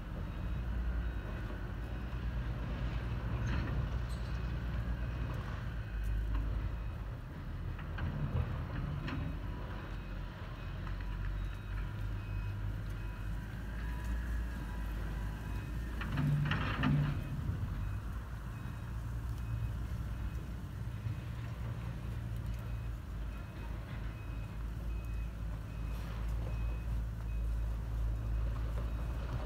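Steady low rumble of distant vehicle traffic, with a faint high beep repeating evenly in the second half and a brief louder burst of noise about sixteen seconds in.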